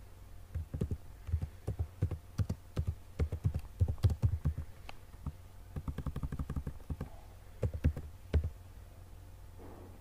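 Typing on a computer keyboard: a run of irregular key presses, with a quick even burst of repeated strokes about six seconds in, stopping near the end.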